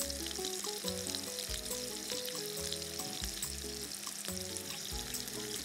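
Pear halves frying in melted butter in a pan, a steady sizzle, with soft background music and a bass line underneath.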